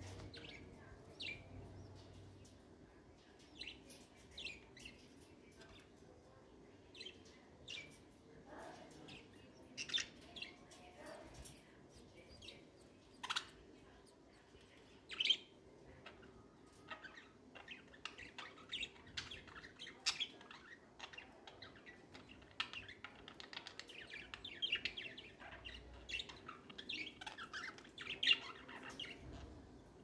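Budgerigars chirping: scattered short, sharp chirps that thicken into busier chatter over the last several seconds.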